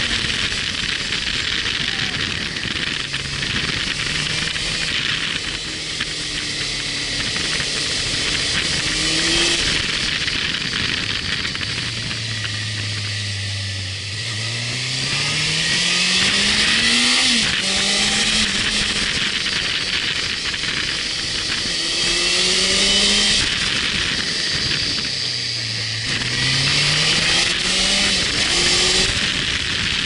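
Motorcycle engine running under way, its note climbing as it accelerates and dropping back at gear changes, most clearly about halfway through and again near the end, over a steady rush of wind noise on the microphone.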